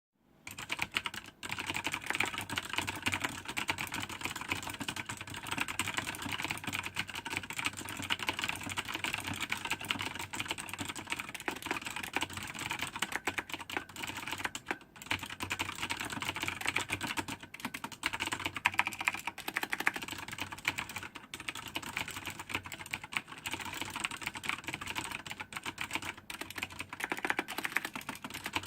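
Fast, continuous typing on a Razer BlackWidow Ultimate 2014 mechanical keyboard with clicky Kailh Green switches, a dense stream of sharp key clicks with a couple of brief pauses.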